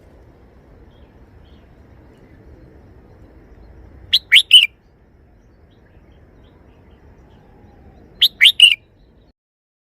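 Red-whiskered bulbul singing two short three-note phrases, about four seconds apart, over a faint low background hum.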